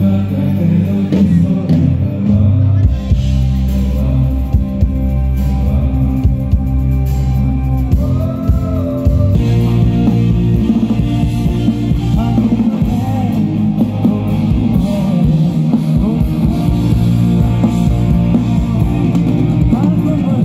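A live band playing pop-rock with a singer over drum kit and guitar, with held low bass notes underneath.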